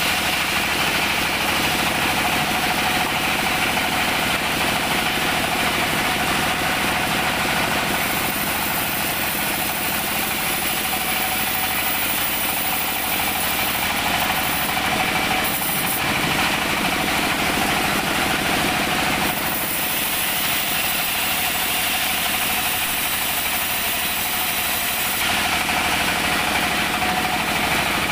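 Engine-driven band sawmill running steadily while its blade rips teak planks lengthwise. A continuous machine drone sits under a high sawing hiss that swells and eases a few times as boards are pushed through the blade.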